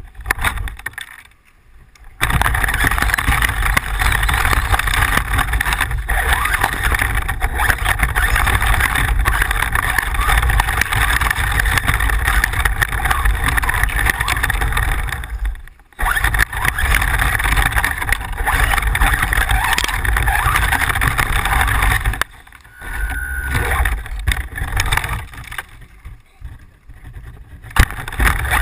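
Radio-controlled car running over rough ground, a steady noisy drone that cuts out briefly a little past halfway and turns quieter and stop-start near the end.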